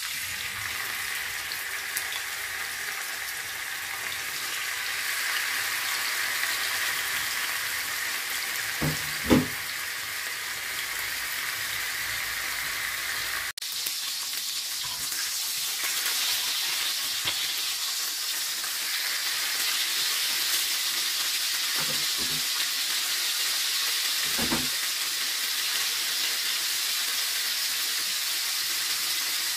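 Pork shoulder steaks sizzling steadily as they fry in hot olive oil in a frying pan, with a few brief knocks, the loudest about nine seconds in.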